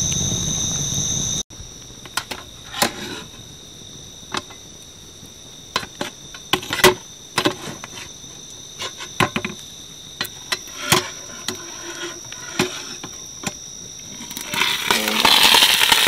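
Metal lid lifter working the coal-covered lid of a camp oven: scattered sharp clinks and knocks, then a rising hiss near the end as the lid comes off. Crickets trill steadily behind, louder in the first second or so.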